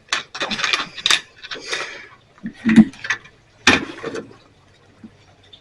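Metal-on-metal clinking and scraping as a screwdriver works a steel rod's loop against a turnbuckle: a quick run of clicks and scrapes, then a few sharper knocks.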